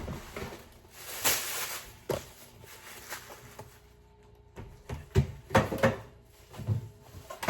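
Groceries being handled and set down: a rustle of packaging about a second in, then a run of short knocks and thunks of items put down, about five to seven seconds in.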